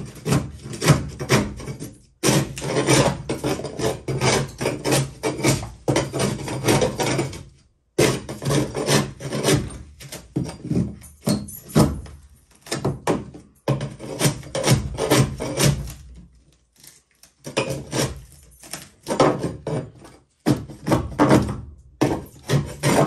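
A long-handled pole scraper scrapes old foam and wood debris off the bottom of a fiberglass boat hull. It works in flurries of quick rasping strokes, with brief pauses about 2, 8, 16 and 20 seconds in.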